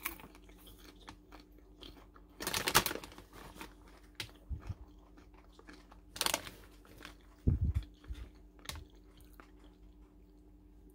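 Foil-lined snack bag crinkling as it is held and pulled open, in a few short bursts; the loudest is about two and a half seconds in, and a soft thump comes later.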